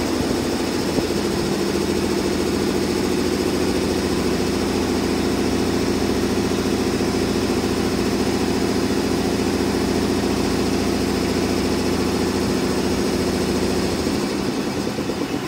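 Air compressor of a JR EF65 electric locomotive running steadily while the locomotive stands still, a steady low mechanical hum that stops near the end.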